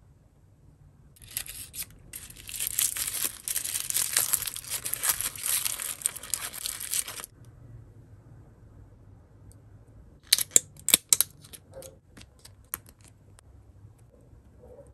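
A small plastic accessory pouch is torn and crinkled open by hand: a dense crackle starting about a second in and lasting about six seconds. A few seconds later comes a quick run of sharp clicks from tiny plastic doll shoes being handled.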